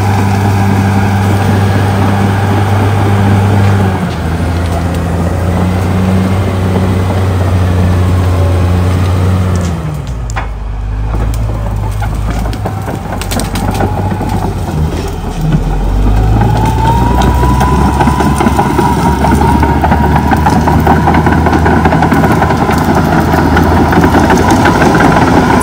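CAT D6R XL crawler dozer's diesel engine working hard. It pulls down lower and rougher for several seconds about midway as the blade pushes into brush, with some cracking, then picks back up with a steady high whine over the engine.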